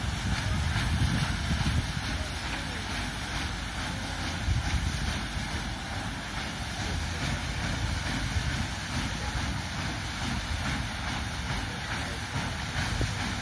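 Wind buffeting the microphone in uneven gusts, over the steady running of the Kisfaludy paddle steamer as it passes along the water.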